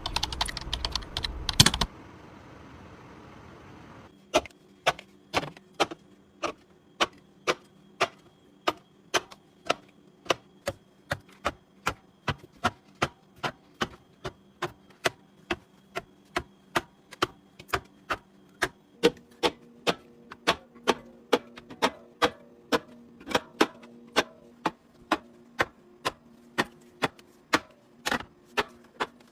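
Sharp, evenly spaced clicks, about two a second, over a faint low hum, after a short burst of clatter at the start.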